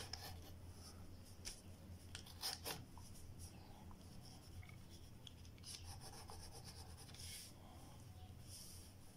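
Faint scratching of a wooden graphite pencil on paper as lines are sketched, in short irregular strokes, a few of them louder about two and a half seconds in.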